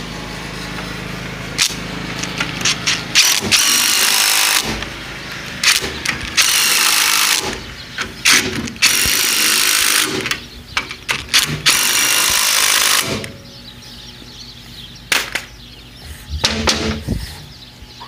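Power tool driving a socket on the bearing bolts of a cross apron chain drive, running in several bursts of one to three seconds as the bolts are tightened.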